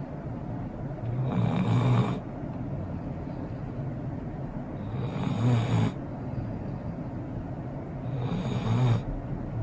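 Golden retriever snoring in its sleep: three snores, each about a second long, coming roughly every three and a half seconds.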